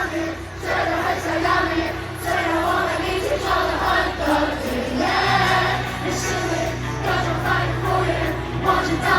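Live pop concert music with singing, amplified through an arena sound system and heard from the audience.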